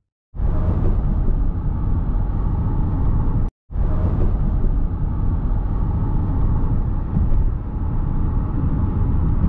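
Steady road and engine noise of a car driving at speed, heard from inside the moving car. The sound cuts out completely for a moment at the start and again about three and a half seconds in.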